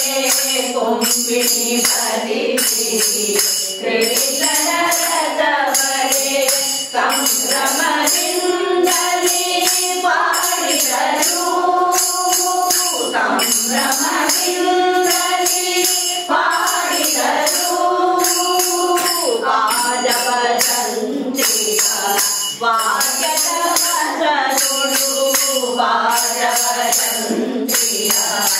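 A group of women singing a Kannada devotional bhajan together, kept in time by jingling hand percussion struck about twice a second.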